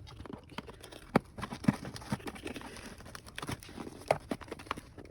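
Packaging rustling and crinkling as a parcel is unwrapped by hand, with scattered sharp taps and clicks, the loudest a little over a second in.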